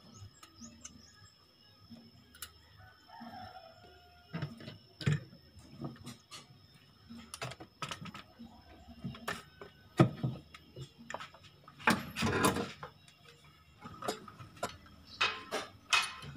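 Scattered knocks, clicks and clatter of tools and engine parts as mechanics take apart the top of a Suzuki Ertiga's K14B engine, working the intake manifold loose from the cylinder head. A louder scraping rustle comes about twelve seconds in.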